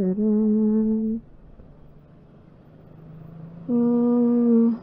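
A woman humming long held notes through a face mask inside a helmet: one note in the first second, then a pause, then another held note near the end.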